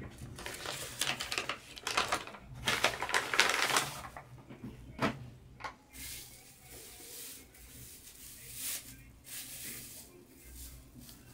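Paper bag and plastic wrapping crinkling and rustling as hands open them. The crackle is densest in the first four seconds, then gives way to quieter, scattered handling.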